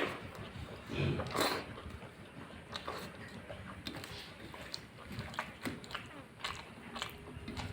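Close-miked chewing of a rice meal, with scattered wet mouth clicks and smacks and a somewhat louder bite about a second in.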